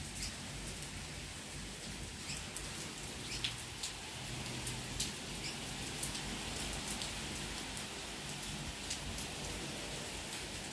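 Heavy rain falling steadily, a constant hiss with scattered sharp ticks of drops striking nearby surfaces.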